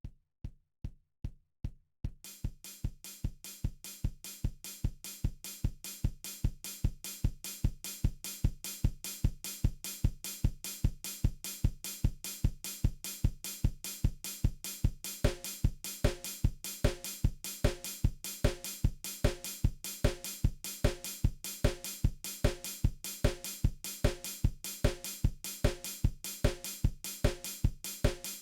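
Drum beat: a few lone kick-drum hits, then about two seconds in a full kit pattern of kick, snare and hi-hat at a steady tempo. About halfway through, a pitched instrument part joins over the beat.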